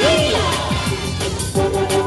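Upbeat dance music with a steady drum beat and a sliding melody line.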